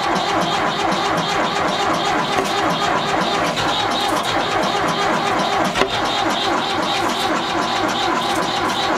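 Cold start of a 1978 Ford 550 backhoe's 201 cubic inch 3-cylinder diesel: the engine cranking over on its starter in an even, quick rhythm without yet running cleanly.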